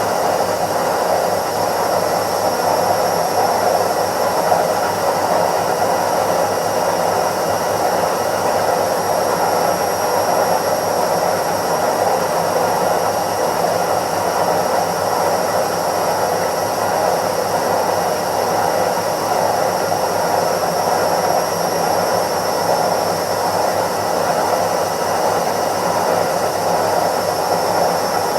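Indesit IWC71252 washing machine on its spin cycle: a steady whirring rush of the drum spinning at speed, with a faint high whine from the motor.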